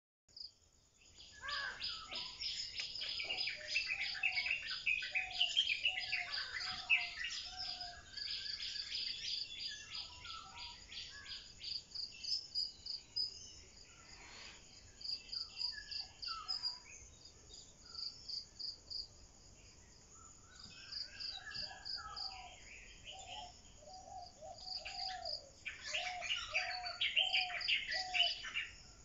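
Birds chirping and singing in a busy chorus, with runs of lower repeated calls, over a steady high insect trill. The chorus is densest at the start and again near the end, thinning out in the middle.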